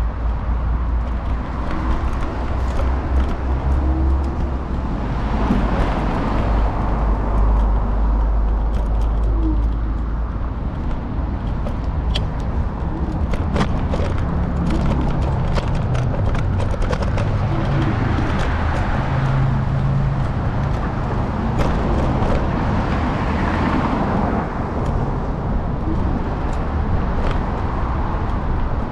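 City street traffic with cars passing, heard from a moving electric scooter through a handlebar-mounted camera. There is a steady low rumble underneath, the traffic swells several times as vehicles go by, and there are a few sharp clicks near the middle.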